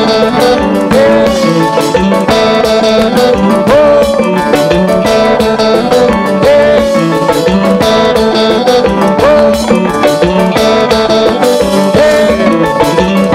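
Live konpa band playing a steady dance groove on electric guitar, bass and drum kit. The electric guitar repeats a short riff with a bent note over and over.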